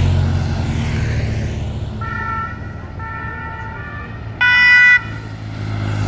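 Police motorcycle engine passing close by, then a two-tone siren sounding in alternating notes from about two seconds in, with one louder, brief blast about three quarters of the way through.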